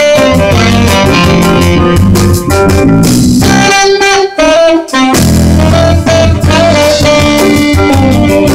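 Live jazz band playing: electric guitar, drum kit and a horn together. For a moment a few seconds in, the bass and drums drop out and a held horn line carries on alone before the full band comes back.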